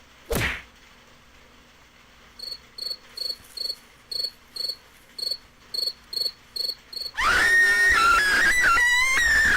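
Cricket chirps from a sound-effect clip: about a dozen short, high chirps at an even pace of roughly two and a half a second. They follow a brief burst of noise at the start, and about seven seconds in a louder pitched sound that steps up and down in pitch takes over.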